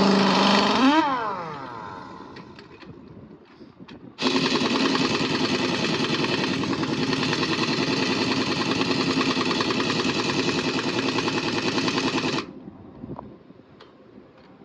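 Pneumatic impact wrench on a truck wheel's lug nuts. It spins briefly, its pitch rising and then falling away as it stops. About four seconds in it hammers steadily for about eight seconds, a rapid rattling that cuts off abruptly.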